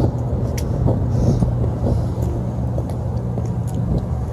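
Rooftop gas heating unit running with a steady low hum, with a few faint clicks over it.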